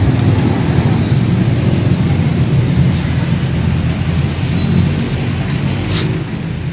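Air compressor running with a steady low drone while it inflates a freshly taped, tubeless-converted bicycle tire to seat its bead on the rim, with a brief hiss of air about six seconds in.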